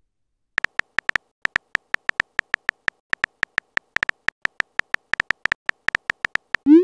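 Virtual keyboard tap sounds from a texting app: a quick run of short, identical pitched clicks, several a second, as a message is typed letter by letter. Near the end a short rising whoosh plays as the message is sent.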